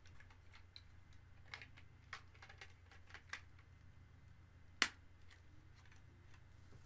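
Small plastic clicks and taps of Lego pieces being handled, with one sharper click a little under five seconds in.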